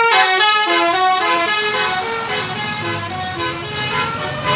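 Bus 'telolet' horn, a Basuri multi-tone horn set, playing a quick melody of short notes that step up and down in pitch. From about two seconds in, the bus's engine and road noise rise underneath as it passes.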